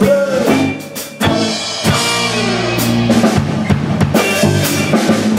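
Live band playing an instrumental passage: electric and acoustic guitars over a drum kit with bass drum and snare. The level drops briefly about a second in, then the full band comes back in loud.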